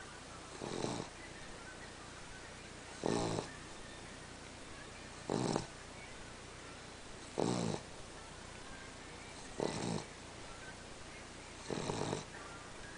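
Cavalier King Charles Spaniel snoring: six short snores, evenly spaced about every two seconds.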